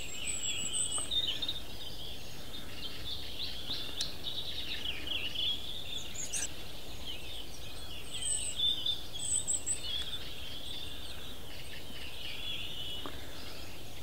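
Wild birds chirping and twittering in short, quick phrases, with a few higher squeaks mixed in, over a steady outdoor background hiss.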